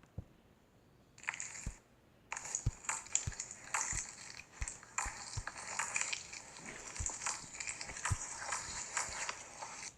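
Slime being squished and worked by hand: a dense, sticky crackling that starts about a second in, breaks off briefly, then carries on.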